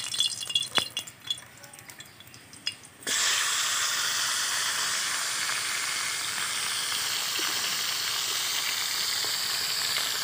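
A few faint clicks and knocks, then about three seconds in a sudden loud sizzle as a katla fish head goes into hot mustard oil in an aluminium kadai. It keeps frying with a steady hiss.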